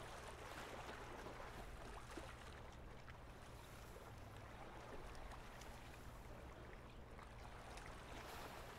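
Near silence: a faint, steady background hiss with a low hum.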